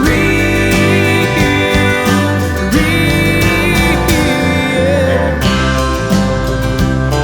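Country music with guitars, held melodic notes over a steady beat.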